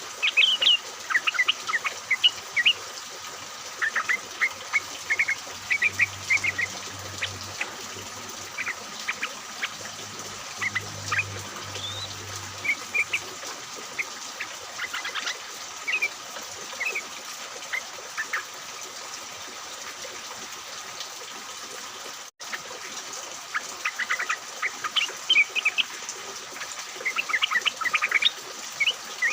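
A group of yellow-vented bulbuls (trucukan) chattering, with quick bunches of short chirps over a steady background hiss. The chirping thins out for several seconds past the middle, breaks off for an instant, then picks up busily again near the end.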